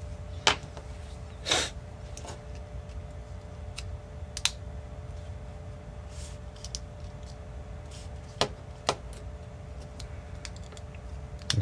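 Scattered clicks and taps of a hard plastic case shell being handled and pressed together around a soldering iron's circuit board and metal parts. The clicks are irregular, a few close together in the first seconds and a couple more later, over a faint steady hum.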